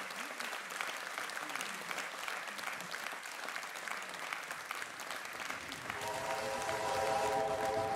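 Theatre audience applauding, a dense even clapping; about six seconds in a steady held note with several pitches comes in over the clapping.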